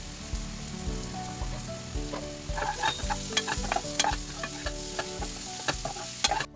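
Onion-tomato masala sizzling in hot oil in a pan while it is stirred, with irregular clicks and scrapes of the utensil against the pan. The sizzle cuts off suddenly near the end.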